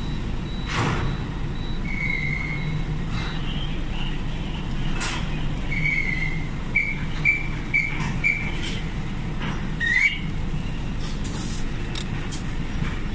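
Truck engine running low and steady as it creeps across a ferry's enclosed vehicle deck, under short high whistle blasts from the deck crew guiding it: a long blast, then a quick run of four, then a rising one near the end. A few sharp clanks mark the way.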